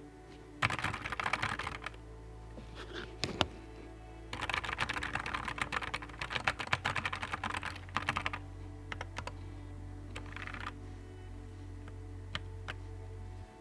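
Typing on a Nuphy Air 75 V2 low-profile mechanical keyboard: bursts of quick key clicks, the longest lasting about four seconds in the middle, then a few single keystrokes near the end, over soft background music.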